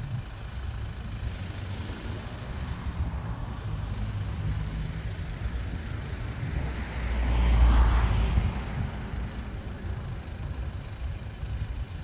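Steady low outdoor rumble with a motor vehicle passing close by, swelling to its loudest about eight seconds in and then fading.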